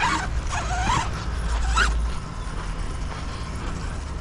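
Traxxas X-Maxx RC monster truck's Hobbywing Max5 800kV brushless motor and drivetrain whining, rising and falling in pitch several times as the throttle is worked in the first two seconds, then fading. A steady low rumble runs underneath.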